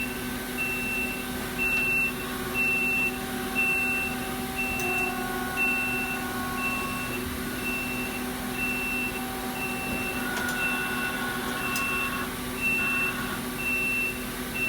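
Okuma & Howa 2SP-3-HG CNC lathe running with a steady mechanical hum of several held tones, some shifting in pitch now and then, while a high electronic beep pulses on and off about once a second.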